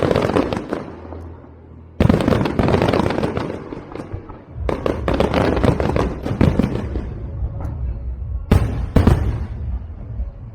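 Aerial fireworks shells bursting overhead, each burst followed by dense crackling. There are sudden loud bursts about two seconds in, near five seconds, and twice in quick succession near the end.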